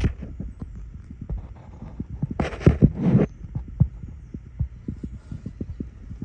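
Irregular knocks and clicks of hands working plastic clips and wiring in a car's engine bay, with a rustling scrape just under a second long about two and a half seconds in.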